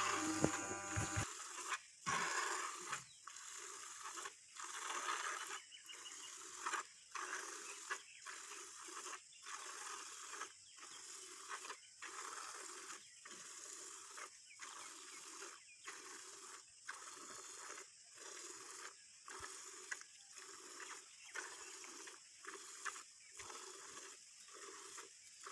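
Cow being milked by hand into a pail: milk squirts hissing into the bucket in a steady rhythm of about one a second.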